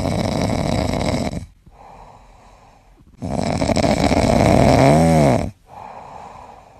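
A puppy snoring in its sleep: two loud in-breaths about three seconds apart, each followed by a softer out-breath. The second in-breath ends in a brief whistling note that rises and falls.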